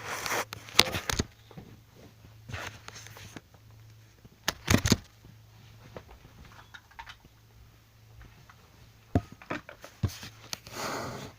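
Handling noises: scattered knocks, clicks and rustles of things being moved about, in several short clusters, over a low steady hum.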